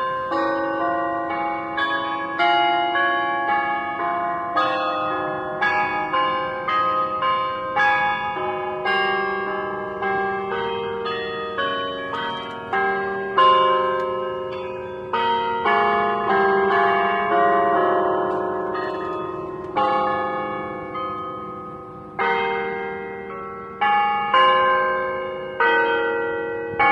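A melody of struck bell tones, one after another, each ringing out and fading, moving through many different pitches.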